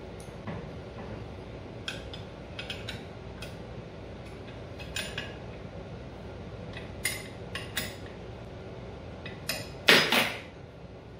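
Steel hand tools clicking and clinking against the lathe as a wrench works the motor pulley and belt mount, then a louder metallic clatter about ten seconds in as an open-end wrench is set down in the lathe's sheet-metal chip tray.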